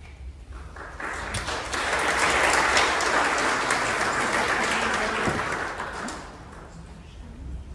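Audience applauding, swelling about a second in and dying away after about six seconds.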